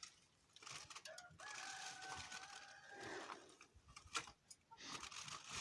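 A rooster crowing once, faint, starting about a second in and held for about two seconds. A few light clicks from handling sound around it.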